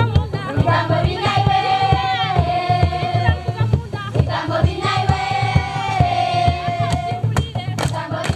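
Children singing together over a steady hand-drum beat, the voices holding long notes between phrases.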